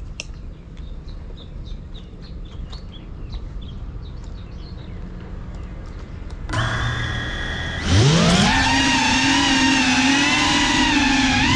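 GEPRC Cinelog 35 6S cinewhoop's brushless motors and propellers: a low hum starts about six and a half seconds in as the motors begin spinning. At about eight seconds they spool up in a rising whine that then holds loud and steady, wavering in pitch near the end as the throttle moves.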